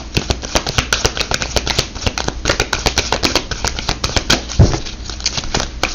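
A deck of oracle cards being shuffled by hand: a quick, irregular run of soft card flicks and clicks, with one dull thump a little past two-thirds of the way through.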